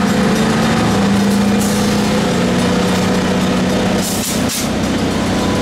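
Diesel locomotive engine running steadily, with a short hiss of air about four seconds in.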